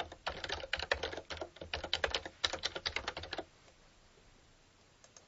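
Computer keyboard typing in quick keystrokes, stopping about three and a half seconds in. A couple of faint clicks follow near the end.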